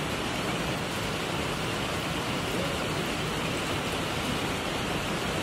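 Steady rain falling, heard from inside a barn as an even, unbroken hiss.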